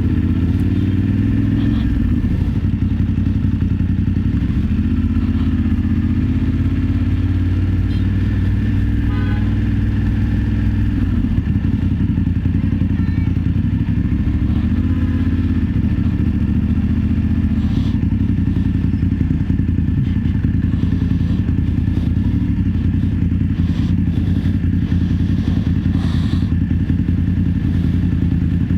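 BMW F 850 GS parallel-twin engine running under way at road speed, its pitch rising and falling a few times as the throttle is opened and closed.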